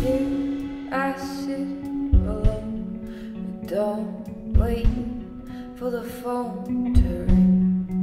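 A song playing: guitar and sustained bass notes with short percussive hits, and a voice singing a melody over them.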